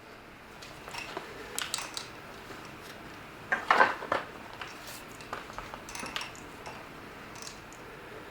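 Scattered light metallic clicks and short scrapes of a katana being handled: the blade and guard knocking and sliding against the scabbard, with a cluster of them about three and a half seconds in.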